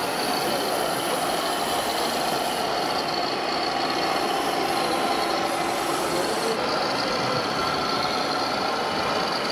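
Scale RC trucks' sound modules playing diesel truck engine running and idling sounds, over a steady background din.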